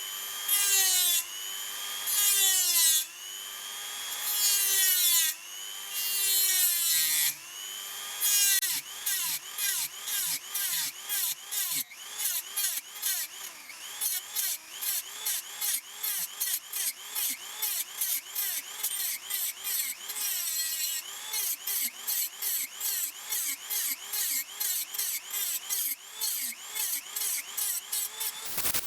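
A hand tool worked back and forth in rhythmic strokes, like sawing or filing, each stroke carrying a ringing squeal that rises and falls in pitch. The strokes are slow, about one a second, for the first eight seconds, then quicken to about three a second.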